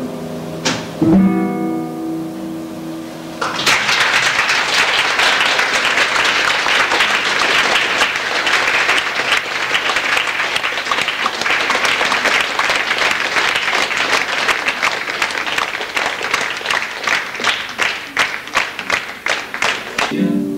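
Acoustic guitars strike a final chord that rings out, then an audience applauds warmly for about seventeen seconds, the clapping thinning out near the end.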